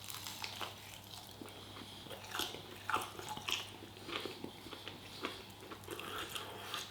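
A person chewing a piece of chicken close to the microphone: irregular small clicks and smacks of the mouth working on the food.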